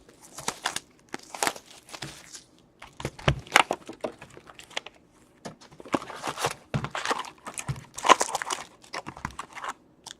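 Plastic wrapping crinkling and tearing in irregular bursts as a sealed box of 2016/17 Upper Deck Series 1 hockey cards is opened.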